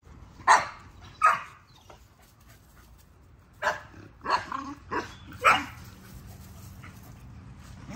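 A dog barking: two barks close together, then four more in quick succession a few seconds later.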